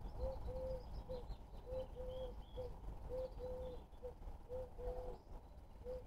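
A dove cooing steadily in repeated three-note phrases, each a short note, a long drawn-out note and a short note, about four phrases in all. Faint high chirps from small birds come in now and then.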